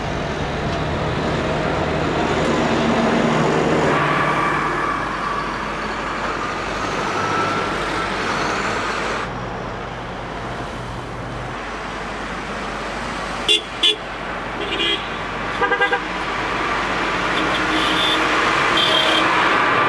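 A slow convoy of tractors, utes and trucks driving past with engines running steadily. In the second half, vehicle horns sound in short toots: two in quick succession, then one more, then a quick burst of several.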